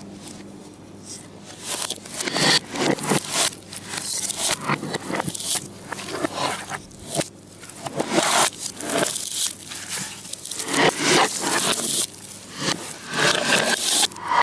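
Hands squishing and scraping a sticky mixture of chicken, butter and egg around a bowl, in irregular strokes, with the sound played backwards.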